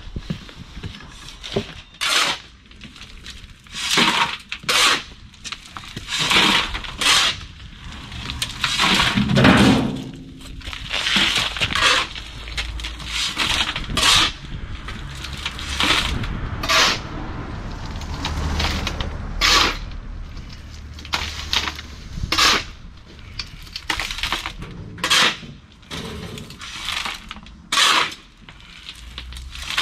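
Shovel scraping into a pile of loose recycled crushed stone, a gritty scrape and rattle of stones every second or two at an irregular pace.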